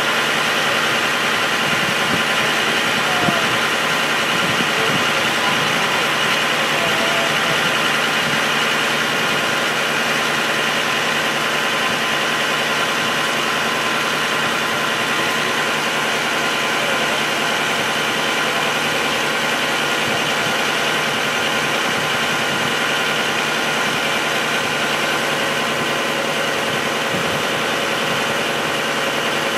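Steady drone of an idling engine or motor-driven machine, holding an even pitch and level throughout.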